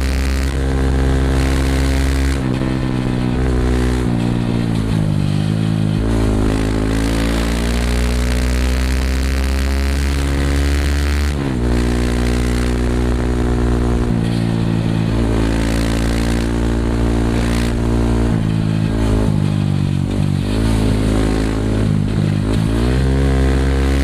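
A Yamaha WR155R's single-cylinder engine running through a Norifumi Rocket 4 aftermarket exhaust while the bike is ridden. The pitch drops and climbs back several times as the throttle is eased and reopened, with an abrupt step in the note about a third of the way through.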